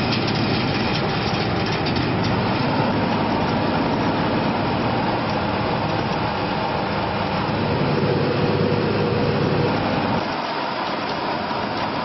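Heavy road-repair machinery running steadily: a continuous mechanical din with a faint steady whine, easing slightly about ten seconds in.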